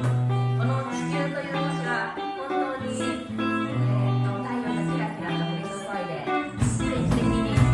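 Live band music with plucked strings over held bass notes. Near the end the full band comes in louder, with percussion hits and a heavier bass.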